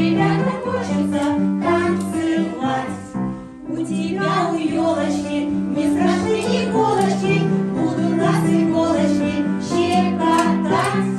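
A children's song: singing over an instrumental backing with a steady, bouncing bass line, with a brief lull about three and a half seconds in.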